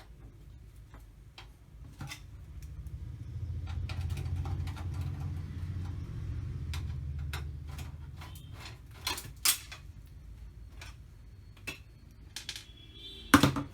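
Scattered clicks and small knocks from handling a PCI-slot USB bracket and its header cable at a desktop PC, over a low rumble that swells and fades in the middle; the sharpest clicks come about nine seconds in and just before the end.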